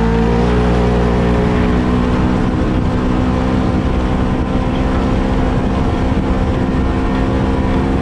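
Polaris RZR 1000 side-by-side engine running at a steady high throttle under load while climbing a sand dune, its pitch rising slightly in the first half second and then holding steady.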